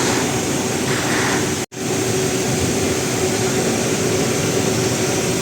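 Steady roar of airliner air-conditioning and aircraft noise, with a faint steady hum beneath. It cuts out for an instant about a second and a half in.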